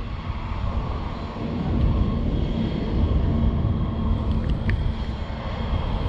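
Wind buffeting the microphone: an uneven low rumble that swells and eases, with a faint steady hum underneath.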